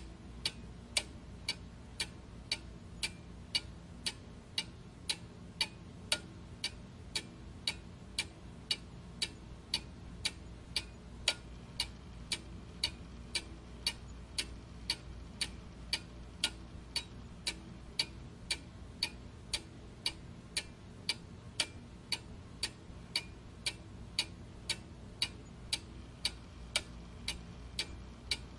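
Steady, evenly spaced ticking, about two ticks a second, over a faint low hum.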